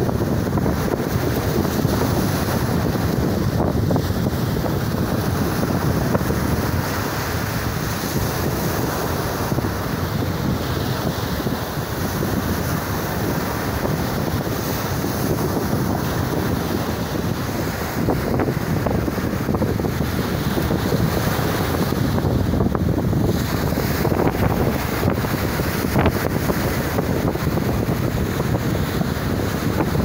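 Sea waves breaking and washing up a sandy beach, with strong wind buffeting the microphone in a steady low rumble.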